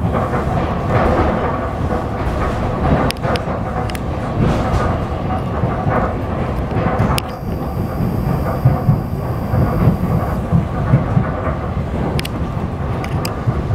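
Inside the carriage of an old ER2K electric commuter train running at speed: a loud, steady rumble of wheels and running gear, with a few sharp clicks scattered through it.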